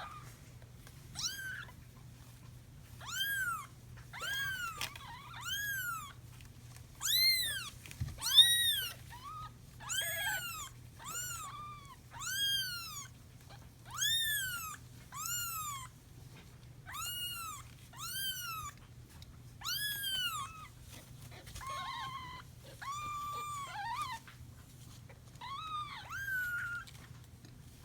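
Young orphan foster kittens meowing over and over, high-pitched cries that rise and fall in pitch, about one a second. These are the kittens' calls when petted: they take the touch for their mother's and expect milk.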